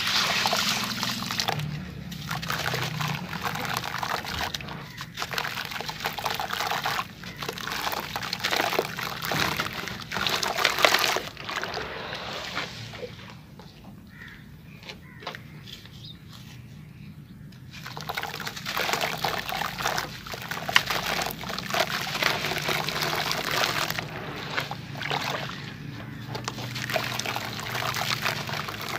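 Hands sloshing and crumbling wet sand-cement lumps in a plastic tub of water, with splashing and trickling as pieces break up and fall back in. The sound drops to a quiet lull for about five seconds midway, then the crumbling and splashing start again.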